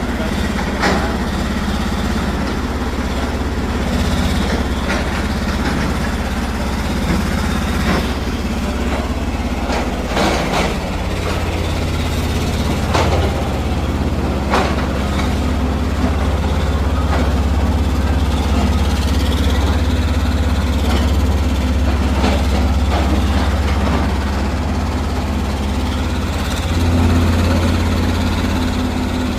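Mini excavator's diesel engine running steadily with a low hum, with scattered short knocks and clanks. It grows briefly louder near the end.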